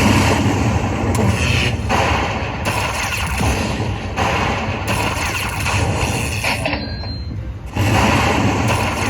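Lightning Link slot machine sounds during a hold-and-spin bonus, mixed with casino floor noise, in dense, abruptly changing stretches of a second or so each.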